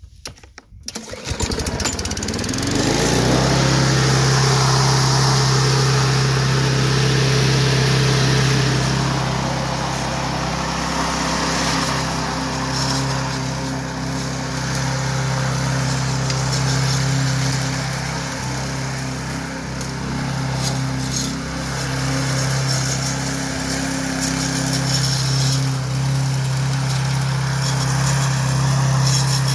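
Poulan lawn mower engine being pull-started: a second of cranking, then it catches and revs up to a steady running speed that holds.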